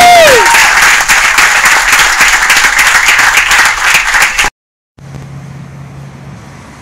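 A small crowd clapping and cheering, right after a loud, high held scream that falls away about half a second in. The applause cuts off abruptly near the end into quieter room noise with a low hum.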